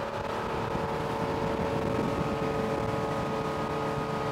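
Mestra 240 motorboat's sterndrive engine running steadily at high cruising speed, a steady engine tone over the rush of the hull on the water.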